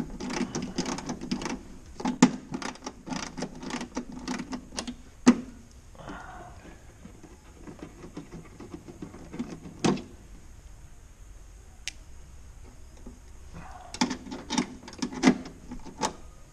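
Rapid metallic clicking of a ratcheting wrench turning a bolt at an aircraft wheel pant's mounting bracket. It comes in two spells, a longer one at the start and a shorter one near the end, with a quieter stretch between that holds a few handling sounds.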